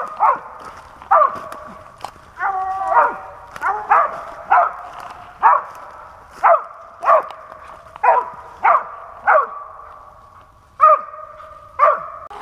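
A squirrel dog barking treed at the base of a tree: a run of sharp barks about a second apart, with one longer drawn-out bark a few seconds in and a short pause before the last two. It is the dog's tree bark, signalling a squirrel up the tree.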